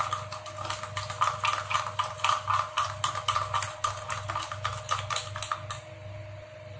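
Metal spoon stirring a thick coffee-and-sugar paste in a steel cup, clinking and scraping against the cup in quick repeated clicks, stopping about six seconds in as the spoon is set down.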